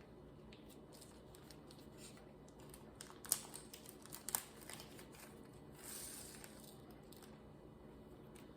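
Faint crinkling of small plastic baggies of diamond painting drills being handled, with a few light plastic clicks; the two sharpest ticks come just over three seconds in and a little past four seconds.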